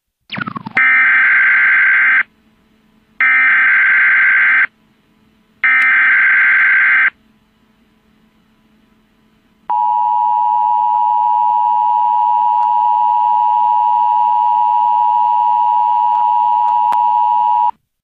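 Emergency Alert System tones: after a brief falling chirp, three bursts of the SAME header's data screech, each about a second and a half long. After a short pause comes the steady two-tone EAS attention signal, held for about eight seconds.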